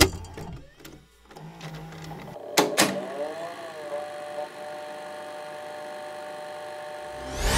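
VHS video cassette recorder loading and starting playback: mechanical whirring and clatter, two sharp clicks about two and a half seconds in, then a brief wavering tone and a steady tape hiss with a hum. Music fades in near the end.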